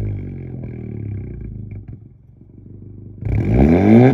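Exhaust of a Honda Civic Si's turbocharged 1.5-litre four-cylinder, running a catless downpipe and race catback: the revs die away to a quiet idle, then a little after three seconds in the throttle is blipped and the note climbs steeply into a loud rev.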